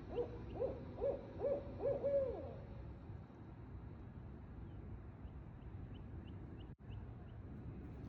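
Barred owl hooting: a quick run of about five hoots in the first two and a half seconds, ending in one longer note that drops in pitch.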